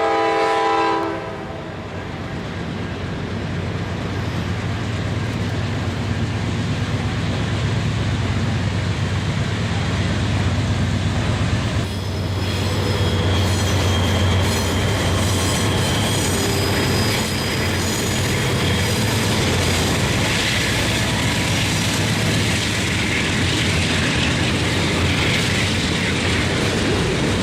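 Diesel locomotive air horn sounding a chord that cuts off about a second in, then a freight train of locomotives rolling past with a steady low engine rumble and wheel noise on the rails. Thin wheel-squeal tones come in around the middle.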